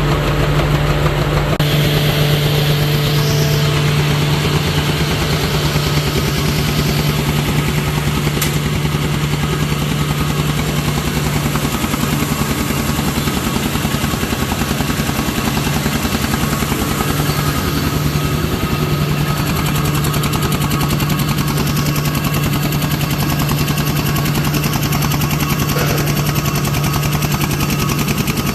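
Automatic C-fold hand towel paper machine running at production speed: a steady low hum under a fast, continuous mechanical clatter.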